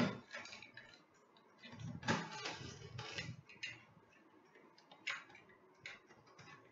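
Packing tape on the top of a cardboard shipping box being cut and scraped open with a small hand tool: irregular scrapes and clicks on the cardboard.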